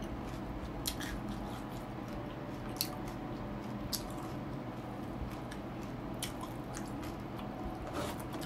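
Close-miked wet chewing and mouth smacks of a person eating fried pork and rice by hand, with about five short sharp clicks spread through.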